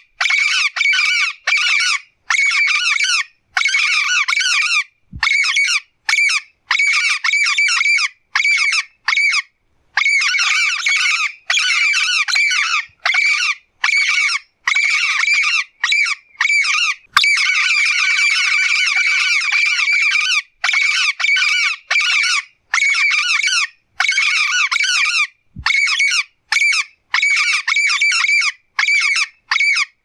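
Yellow-faced parrot calling: harsh squawks and chatter in runs of one to a few seconds, broken by short silent gaps, with one longer run about two thirds of the way through.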